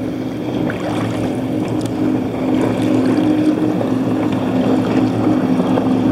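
A racing powerboat's engine drones steadily in the background and grows louder from about halfway in, over wind and water noise.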